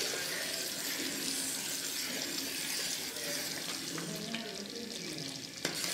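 Thick jackfruit purée and jaggery syrup (chakka varatti) boiling down in a pan, bubbling and bursting with a steady hiss as it reduces and thickens under a steel spoon. A single click comes near the end.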